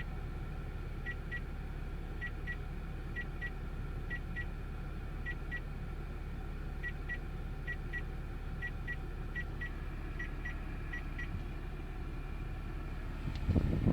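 Short high beeps from the engine compartment of a 2013 Jaguar XJ (X351), heard inside the car. They come in quick pairs about once a second over a steady low hum and stop a little before the end, where a louder rush of noise starts. The beep is unexplained: it sets no error code or dash warning.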